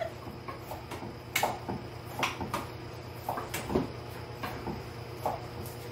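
Kitchen knives chopping on wooden cutting boards: short, irregular knocks, about eight in all, over a low steady hum.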